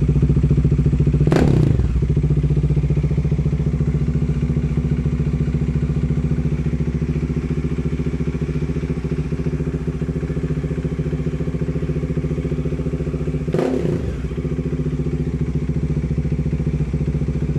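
Bajaj Dominar 400's single-cylinder engine idling through a Two Brothers Racing aftermarket exhaust with a magnesium tip. It is blipped briefly twice, once a second or so in and again near the end, each rev falling straight back to idle.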